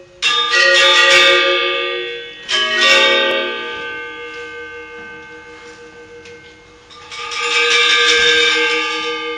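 Gender wayang, the bronze-keyed metallophones that accompany Balinese shadow puppet plays, playing struck notes that ring on and shimmer together. Phrases begin just after the start, about two and a half seconds in, and about seven seconds in, each dying away before the next.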